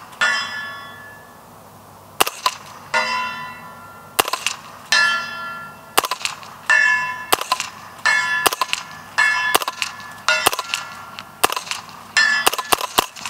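Spikes Tactical Brown Recluse integrally suppressed 9mm carbine firing a string of more than a dozen subsonic shots, roughly one a second with some closer together. Each shot is answered a moment later by the ring of a steel plate target being hit at 150 yards.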